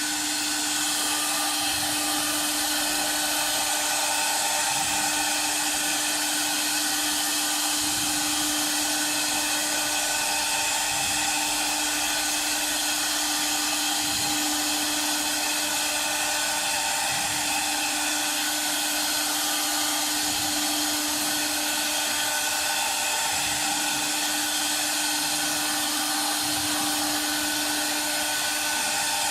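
Air-cooled spindle of a wood CNC router running at speed while carving MDF: a steady whine with the rush of its cooling fan.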